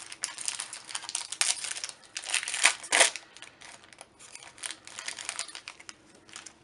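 Foil wrapper of a Magic: The Gathering booster pack crinkling as it is handled and torn open, loudest about two and a half to three seconds in.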